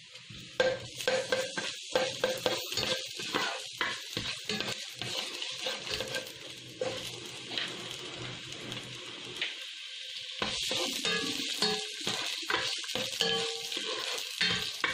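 Chopped garlic and sliced onion sizzling in hot oil in a pot, with a spatula clicking and scraping against the pot as they are stirred. The sizzle grows stronger about ten seconds in.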